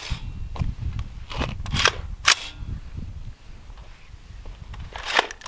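Several sharp, separate clicks and clacks of guns being handled on a homemade twin-rifle spinning rig. Three come close together about one and a half to two and a half seconds in, the last of them the loudest. A quiet spell follows, then one more click near the end.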